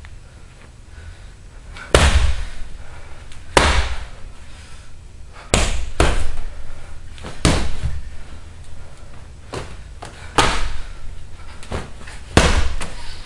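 Punches and kicks landing on a hanging heavy punching bag: about seven hard thuds at uneven gaps of one to two seconds, with a few lighter hits between, each trailing a short echo.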